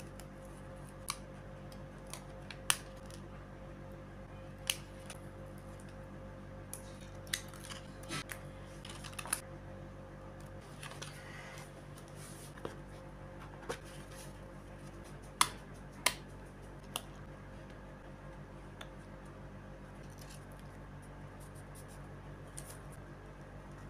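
Hands handling clear plastic sticker sheets and paper stickers on a journal page: scattered sharp clicks and crackles, a dozen or so, mostly in the first two-thirds, over a steady background hum.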